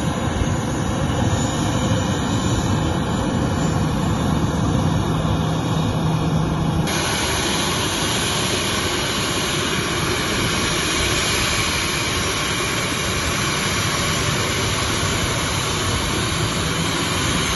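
A Boeing 737-800's CFM56-7B turbofan engines running at taxi power, a loud, steady jet noise. Its character changes abruptly about seven seconds in.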